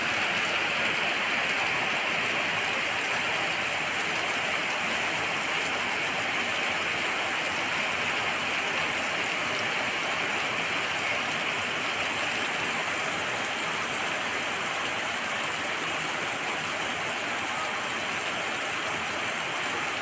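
Heavy rain pouring down steadily onto open ground, a dense, even hiss that neither builds nor eases.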